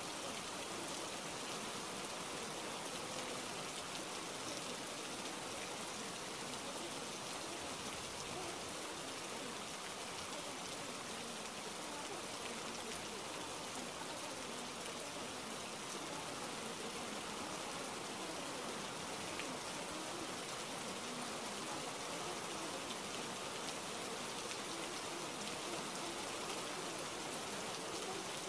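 Steady rain: an even hiss of falling rain with no distinct drops or events standing out, holding the same level throughout.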